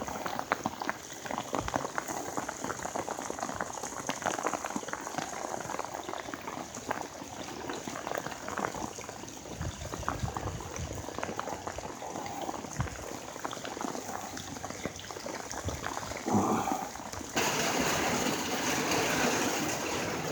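Heavy rain pouring down and splashing on flooded pavement, a dense crackle of countless drops. About three seconds before the end it suddenly grows louder and hissier as the rain comes down heavier.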